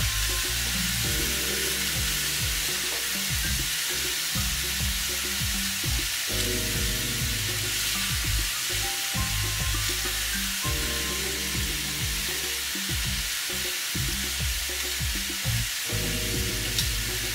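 A sous-vide bone-in ribeye sizzling steadily as it sears in a very hot cast-iron grill pan. Background music plays underneath.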